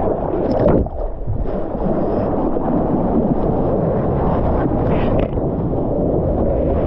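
Seawater rushing and sloshing around a surfer's GoPro as he paddles into a breaking wave, a steady churning wash, briefly muffled about a second in.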